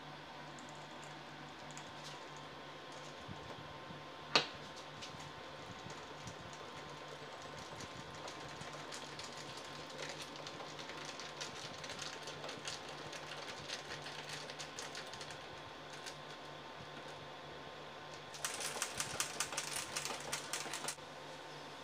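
Metal cutlery clinking and tapping against a steel bowl and a drinking glass as whipped coffee is spooned onto milk and stirred. One sharp clink about four seconds in, light scattered taps through the middle, and a fast run of clinks near the end, over a faint steady hum.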